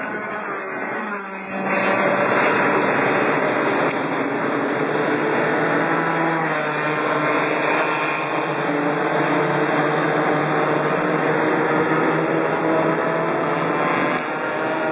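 Racing kart engines buzzing as karts run on the circuit, their pitch rising and falling with throttle and gear-free revs through the corners. The sound gets louder about two seconds in.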